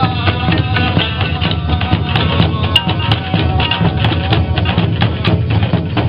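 Folk music played outdoors: a group of round hand-held frame drums beaten in a steady rhythm, with a plucked lute and a strapped-on drum joining in.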